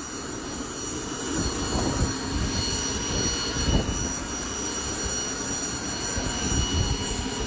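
Helicopter turbine engine running nearby: a steady high-pitched whine of several tones over a low rumble.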